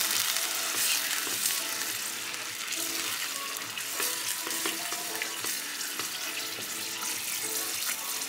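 Water bubbling and sizzling in a pot of oil-toasted rice, just after the water has gone in, with a wooden spoon stirring through it. Soft background music with short repeated notes plays underneath.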